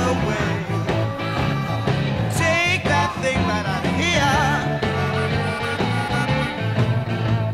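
Rock song playing: an instrumental stretch between sung lines, with a wavering lead line.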